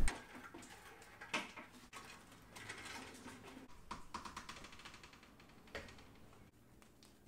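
A vinyl cutter on its wheeled metal floor stand rattling and knocking faintly as it is rolled and tilted through a doorway, with a few scattered clicks and a small knock near the end.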